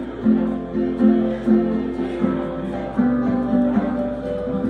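Acoustic guitar strummed live with keyboard accompaniment, playing the instrumental close of a song after the sung chorus, in a steady rhythm.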